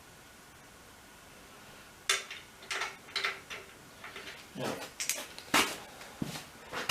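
Metal hand tools clinking and clanking as they are rummaged through and picked up, a series of sharp knocks starting about two seconds in.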